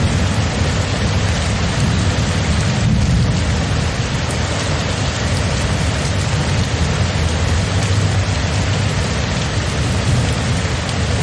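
Steady rain falling, with a continuous low rumble of thunder underneath.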